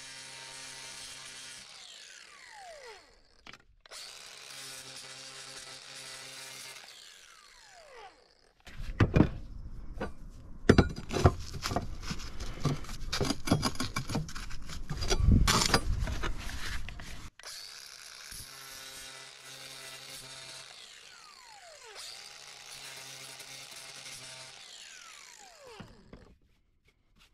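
Cordless angle grinder cutting a notch in a concrete roof tile in several short runs, each ending in a falling whine as the disc spins down; the notch lets the solar tile hook rest on the tile without pressing on it. In the middle comes a longer, louder stretch of knocks and scraping with the grinder off.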